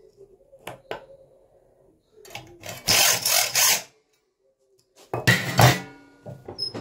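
Hacksaw sawing into a steel saw blade held in a home-made sawtooth-cutting jig, cutting a tooth notch: a short run of quick strokes about two seconds in. Near the end, a loud metal clatter with a brief ring.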